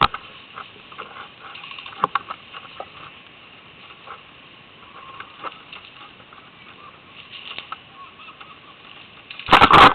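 Faint rustling with scattered light clicks and taps, then a sudden loud burst of noise just before the end.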